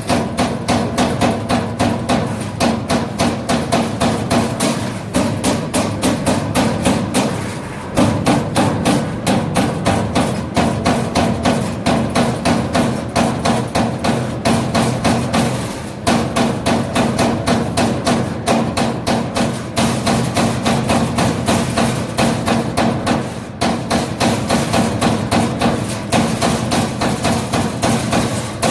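Hydraulic CNC turret punch press punching sheet metal in rapid runs, about four hits a second over a steady machine hum, pausing briefly a few times.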